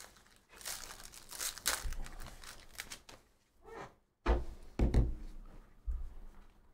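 Foil wrapper of a trading-card pack crinkling and tearing as it is pulled open, followed by a few dull thumps about halfway through and again near the end as the cards are handled.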